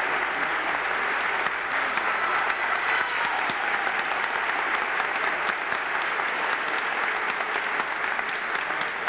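Audience applauding: dense, steady clapping from a full house at the end of a performance.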